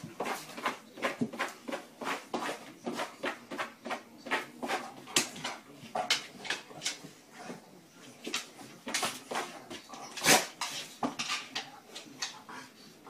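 A golden retriever's claws and paws scrabbling and tapping on a doormat and wooden floor as it paws at a lemon: a quick, uneven run of scratches and taps, with one louder knock about ten seconds in.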